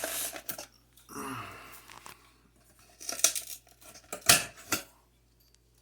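Tinny metal clicks, scrapes and clanks of a recessed light trim being handled and fitted up into an old Lightolier can light, with a few sharp knocks a little after three seconds in and again just after four.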